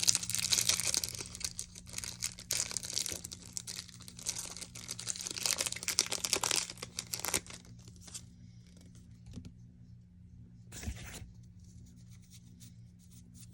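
Foil wrapper of a Pokémon trading-card booster pack being torn open and crinkled for about seven seconds, then quieter rustling and handling of the cards, with one short rustle about eleven seconds in.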